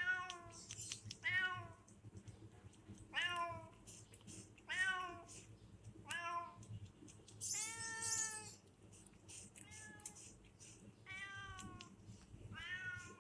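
Domestic cat meowing repeatedly: about nine short meows, each falling in pitch, roughly one every second and a half.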